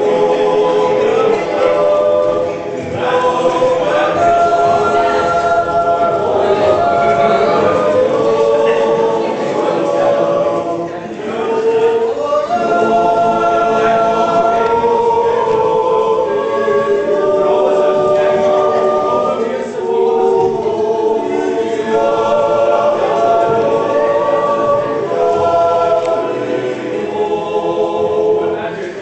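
Swiss yodel club choir singing unaccompanied in held chords, with short breaks between phrases about 11 and 20 seconds in.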